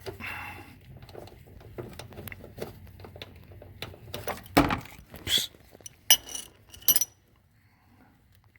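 Metal wrench clinking and knocking against a rusty fitting on the clutch hydraulic line as it is worked loose, with scattered light clicks and a few sharp clinks between about four and seven seconds in, then quiet.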